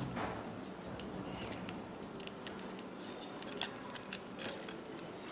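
Light, scattered clicks of a microwave oven's plastic door latch being pushed into its latch housing and working the door interlock switches, with a few clicks bunched together a little past the middle.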